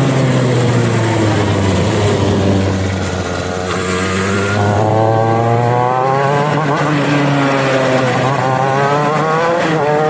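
125cc two-stroke shifter kart engines revving, their pitch climbing and falling several times. A steadier low engine note runs under the first half.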